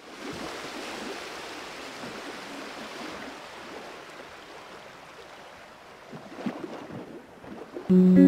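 A steady rushing noise that slowly fades, with a few faint ticks after about six seconds; guitar music starts just before the end.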